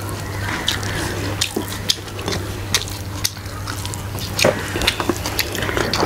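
Eating by hand: wet chewing and lip smacks, with fingers working rice and meat on the plates, heard as a string of small irregular clicks and smacks over a steady low hum.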